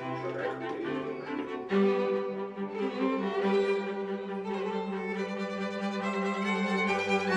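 Background music of bowed strings, violin and cello, playing held notes.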